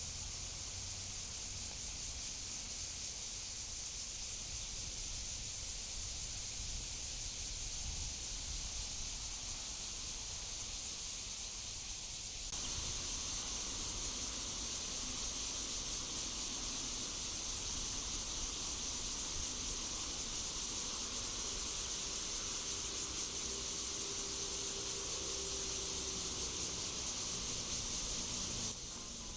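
Cicadas singing in chorus, a steady high-pitched drone over a low rumble. It turns suddenly louder about twelve seconds in.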